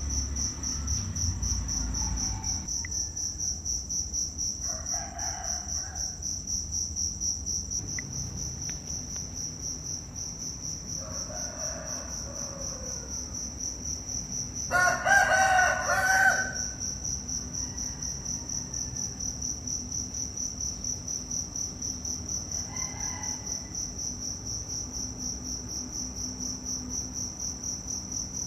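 Insects trilling steadily in a high, fast-pulsing drone. About halfway through, a louder animal call lasts about a second and a half, and fainter shorter calls come before and after it.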